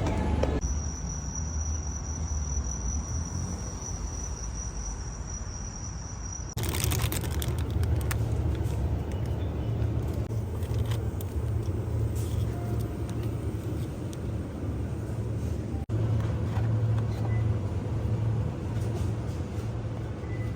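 Low steady rumble of a vehicle in motion, changing abruptly twice. A thin high whine sits over it in the first few seconds.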